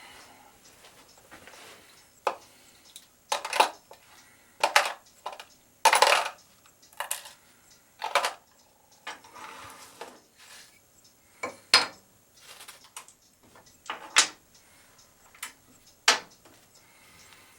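Small hard objects, likely metal pen parts, clinking and tapping as they are handled and set down on a work surface: about a dozen separate, irregular clinks with light rustling between them.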